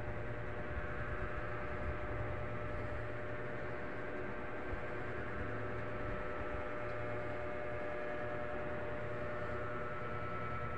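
Steady machine hum from a motor or engine running without change, with several constant tones over a rushing noise.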